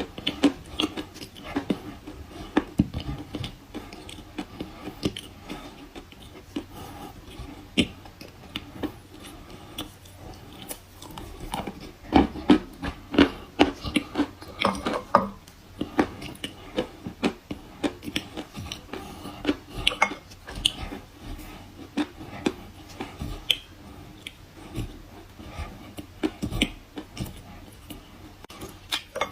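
Close-up chewing and crunching of dry kaolin clay chalk: a dense, irregular run of sharp crunchy bites and chews, busiest about halfway through.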